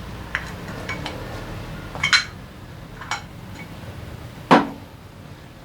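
Metal engine parts and tools clinking and knocking as a Honda PCX 125 scooter engine is taken apart by hand: about five separate strikes, the loudest a little past halfway.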